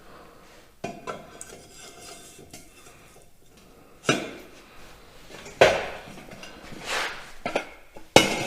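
Steel tubes and plates knocking together as they are handled and fitted into one another: about seven irregular metal clanks, each ringing briefly, the louder ones in the second half.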